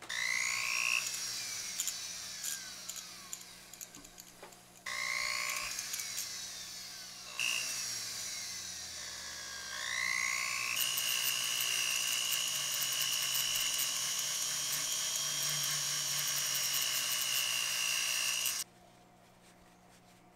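Small handheld rotary tool spinning a felt buffing bit with polishing compound inside a rusty steel cone. Its high whine rises as it starts and sinks as it coasts down, three times in short runs. It then runs steadily for about eight seconds before cutting off suddenly.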